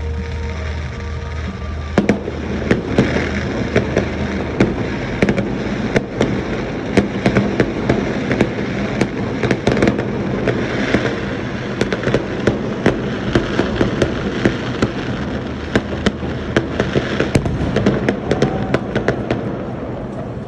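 Fireworks going off in rapid succession: many sharp cracks and pops from about two seconds in, over a continuous crackling din.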